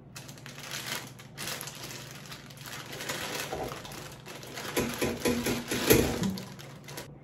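Plastic bag crinkling as it is handled and opened, then frozen fishballs and kikiam being tipped out of it into an air fryer basket, with the loudest thud about six seconds in as they land.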